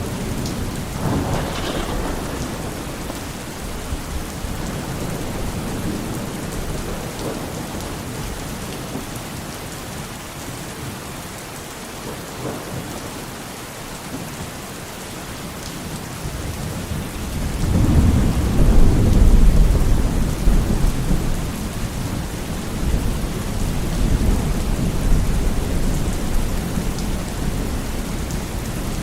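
Steady heavy rain with thunder: a low rolling rumble of thunder swells a little past the middle and is the loudest moment, with a smaller rumble near the start.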